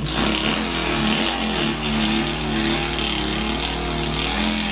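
A man imitating a Volkswagen engine with his mouth: a steady, rough running drone whose pitch wavers gently up and down.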